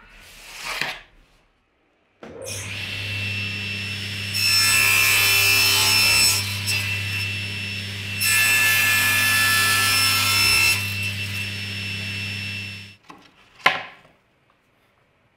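A table saw starts up and its blade cuts twice through a laminate flooring plank on a crosscut sled, each cut a loud spell of sawing over the steady motor hum. The saw cuts off near the end, followed by a brief sharp sound. A short swish comes about a second before the saw starts.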